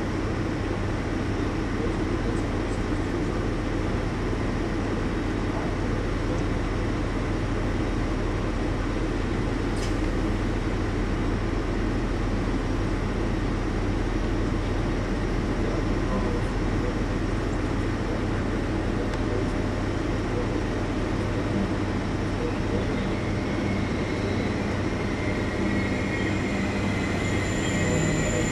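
ÖBB Taurus electric locomotive running slowly into a station at the head of a passenger train, a steady rumble with a low hum. In the last few seconds a high-pitched wheel squeal joins in as it draws close.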